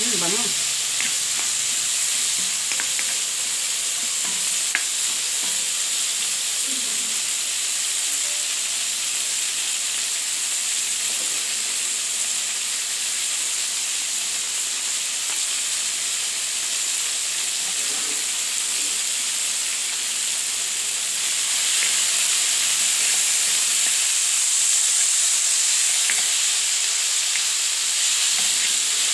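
Leftover adobo with onion, garlic and tomato sizzling in a hot oiled wok over a gas flame, stirred now and then with a spatula. A steady frying hiss that grows a little louder about two-thirds of the way in.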